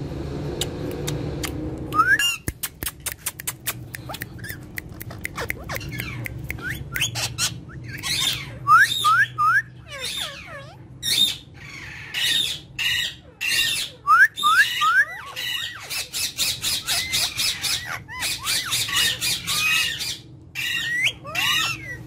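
Several Alexandrine parakeets calling together: a quick run of clicks about two seconds in, then squawks, short rising whistles in quick runs of three, and stretches of fast chattering.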